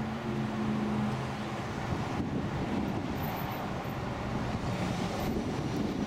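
Steady rush of highway traffic, with the low engine drone of a heavy vehicle passing during the first two seconds or so.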